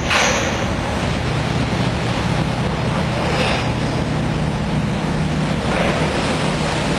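Landing craft engines droning steadily while their propellers churn the water of a flooded well deck, with a rush of water and a few brief surges of hiss.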